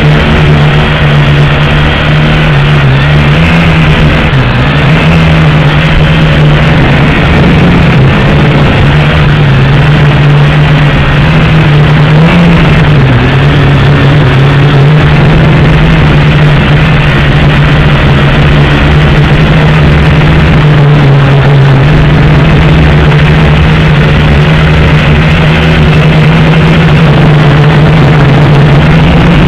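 JXD JD509G quadcopter's motors and propellers buzzing steadily, heard loud and close through its own onboard camera, with the pitch dipping briefly a few times.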